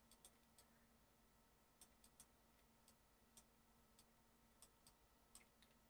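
Near silence with faint, irregular clicks of a computer mouse and keyboard, about ten over several seconds.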